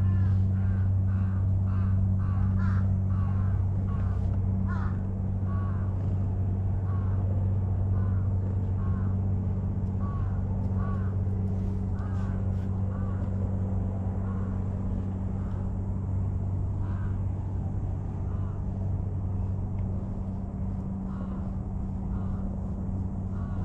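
A steady low hum, with a run of short, repeated bird caws, about two a second, that thin out after the first few seconds and come only now and then afterwards.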